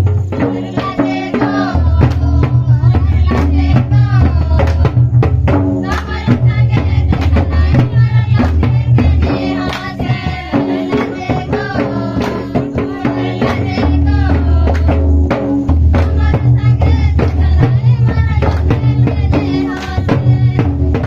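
Jhumar folk song for the Karma dance: voices singing over hand-played two-headed barrel drums (mandar) beating a quick, repeated rhythm.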